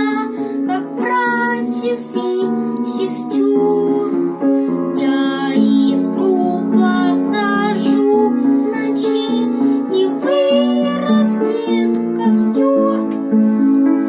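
A boy singing a song with piano accompaniment; the voice moves from note to note over held piano chords throughout.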